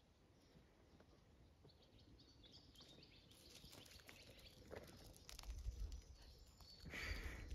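Quiet outdoor ambience with a few light scuffs and crunches of paws on gravel as a cat and puppy move about, then a low rumble and a louder gravel crunch near the end.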